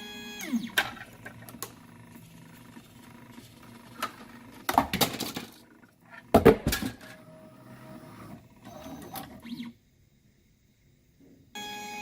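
Ultimaker 3 3D printer: the steady whine of its stepper motors slides down in pitch and stops. Then come knocks, clinks and a clatter of hard plastic as the finished print is pushed off the build plate by the print head and falls, loudest in two bursts in the middle. The motor whine starts up again near the end.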